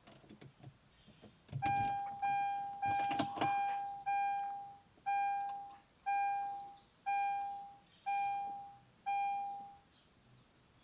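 An electronic beeper sounding ten times on one steady tone: four quick beeps in a row, then six shorter beeps about once a second. Some clicks and knocks come during the first few beeps.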